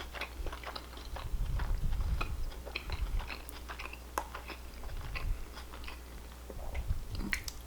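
A person chewing a mouthful of burger close to the microphone: a run of wet, smacking chewing clicks with soft low thumps.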